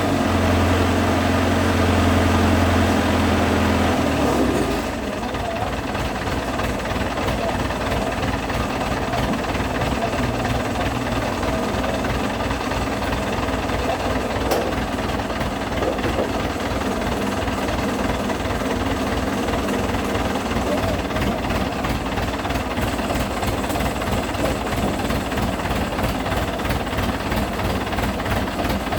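Industrial tray washing machine running. A steady low motor hum stops about four seconds in, leaving a continuous mechanical rattle of rapid, closely spaced pulses.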